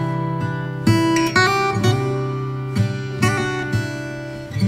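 Background music of an acoustic guitar strumming chords, with the chord changing every second or so.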